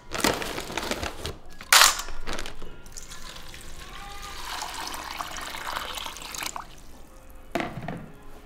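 Water running and splashing, with a louder splash about two seconds in and a short knock near the end.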